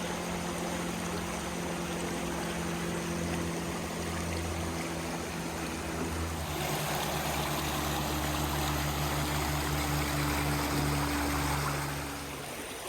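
A creek's water flowing and rushing steadily, with background music of low sustained notes that change about halfway through and stop near the end.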